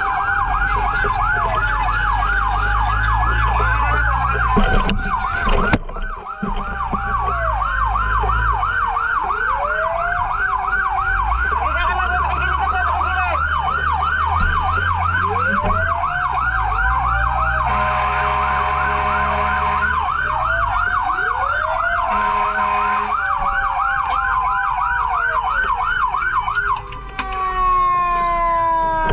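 Fire truck siren sounding a fast yelp, about three sweeps a second, with a slower siren rising and falling underneath and a vehicle engine rumbling low. Steady horn blasts cut in a little past the middle. Near the end the yelp stops and gives way to a slow falling wail.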